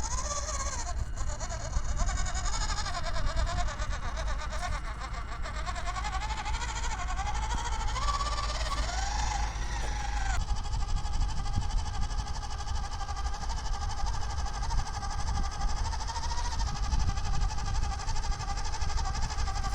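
Electric motor and geartrain of a WPL B24 GAZ-66 RC truck whining in low gear under load, pulling a trailer through loose sand. The pitch wavers up and down with the throttle for about the first ten seconds, then holds steady.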